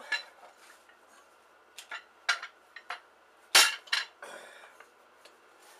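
A string of sharp metal clanks and knocks from handling a folding topside mechanic's creeper and its metal frame, the loudest about three and a half seconds in, followed by a brief scrape.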